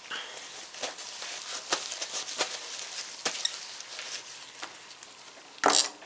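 Irregular small clicks, taps and scrapes of metal ratchet parts being handled and fitted during greasing and reassembly, with one louder brief scrape or rustle near the end.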